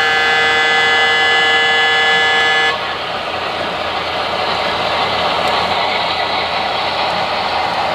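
Sound-equipped HO-scale Alco PA1 model diesel locomotive sounding a long multi-tone horn blast that cuts off about three seconds in, then a steady rumble of the train running.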